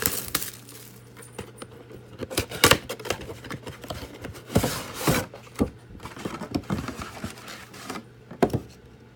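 Hands opening a trading-card mega box and pulling out its foil card packs: irregular rustling and crinkling with sharp taps and clicks of cardboard and packs, the loudest a few seconds in.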